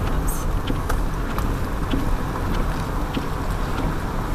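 Steady rumble of a car's engine and tyres heard from inside the cabin while driving, with a few faint ticks.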